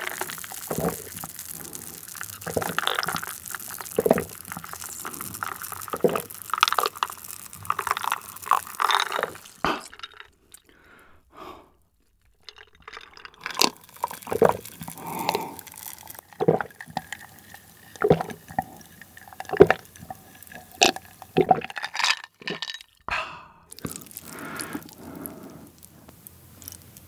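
Iced cola drunk from a glass, heard very close: swallows, fizz and liquid sounds in two long draughts with a short quiet pause between them.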